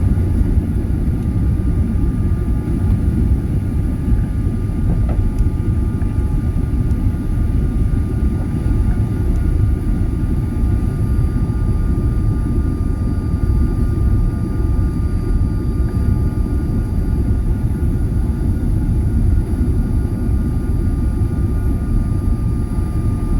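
Airliner engines running at high power during takeoff: a loud, steady deep rumble with a thin steady whine above it.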